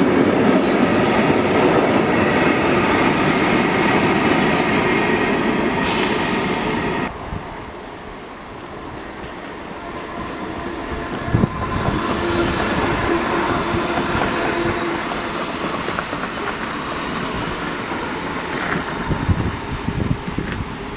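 Container freight train rolling past on the near track: a loud, steady rumble of wagons and wheels on the rails. About seven seconds in it cuts off abruptly. A quieter Skånetrafiken X61 electric multiple unit follows, growing louder from about eleven seconds in as it runs through.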